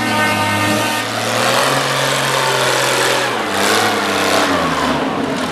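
Farmall 460 pulling tractor's engine running hard under the load of the pulling sled. Its pitch drops twice in the second half.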